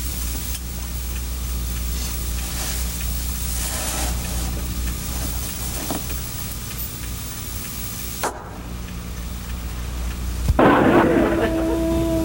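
Steady hiss and low hum with faint rustling, with no speech. About ten and a half seconds in comes a short loud noisy burst, followed by a steady buzzing tone that holds to the end.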